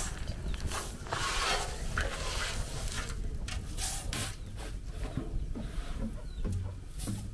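Dry acorn skins rustling and scraping as they are spread by hand over a hot metal griddle, with a wood fire crackling underneath in irregular bursts and clicks.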